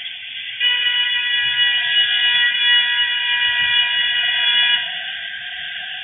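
Car horn honking aggressively in one long, unbroken blast of about four seconds, starting about half a second in and cutting off sharply.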